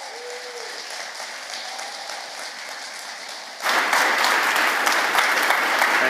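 Audience applauding in a theatre: light clapping at first, then much louder from about three and a half seconds in.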